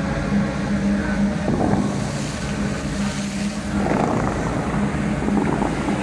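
Dubai Fountain water jets shooting up and rushing, with two surges of spray about a second and a half in and again about four seconds in, over wind on the microphone and a steady low hum.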